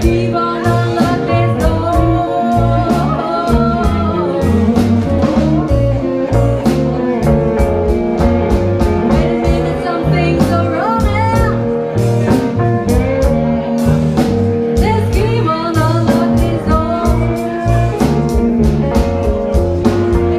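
Live band playing a blues-tinged rock and roll number: electric guitar, bass guitar, drum kit with a steady beat and keyboard, with a woman singing lead.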